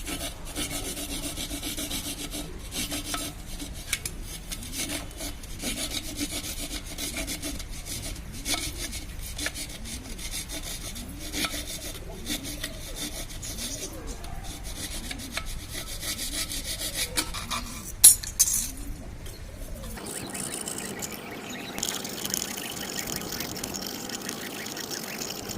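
Repeated scraping and sawing strokes of a hand tool cutting a hole into an earthenware clay pot (matki) being made into a budgie nest, with one sharp knock about eighteen seconds in. Near the end the strokes stop and a steadier hiss remains.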